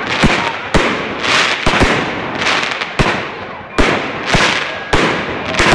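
Fireworks going off in quick succession: about ten sharp bangs, roughly two a second, each trailing off in a hiss.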